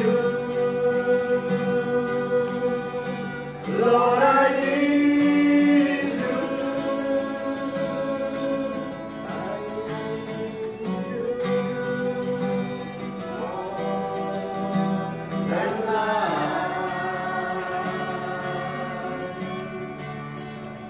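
Slow worship song: voices sing long held notes over acoustic guitar accompaniment.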